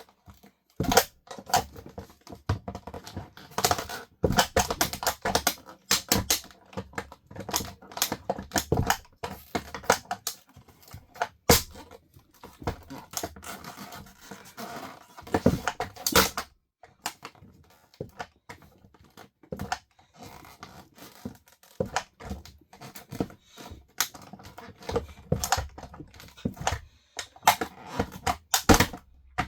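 Plastic RC toy car cracking and crunching under high heels: many irregular sharp snaps and scraping crackles in dense clusters, with short pauses.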